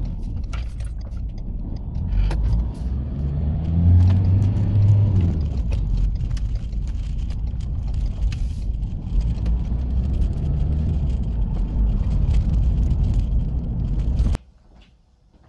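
Car engine and tyre noise heard from inside the cabin while driving, a steady low rumble with scattered small clicks; the engine pulls harder about four seconds in. The sound cuts off suddenly near the end.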